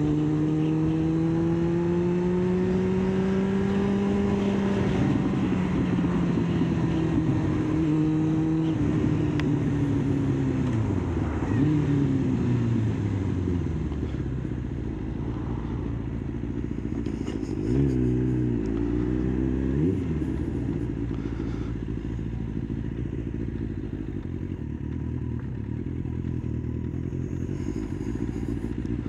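Kawasaki ZX-9R's inline-four engine heard from the saddle, pulling steadily, then falling in pitch in steps as the bike slows on engine braking and drops to a low tickover. About two-thirds of the way in comes one short throttle blip that rises and falls quickly, then the engine goes back to a low tickover.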